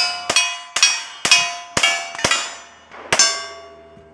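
Rapid rifle shots, about two a second, each followed by the ringing clang of a steel target being hit. After a short pause a final shot rings out about three seconds in, the last of a ten-shot rifle string.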